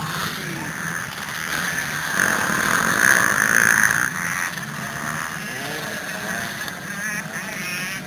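Motocross bike engines running hard as riders race past on the track, the pitch rising and falling with throttle and gear changes; loudest about two to four seconds in.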